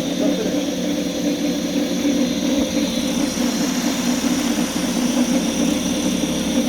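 Electric motor of an FLJ 7000 W 72 V scooter running steadily, a loud even hum with a thin high whine over it. It is the abnormal noise that leaves the owner unsure whether the motor or the controller is faulty.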